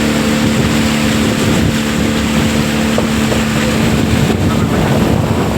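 Motorboat engine running at a steady pitch, with wind buffeting the microphone.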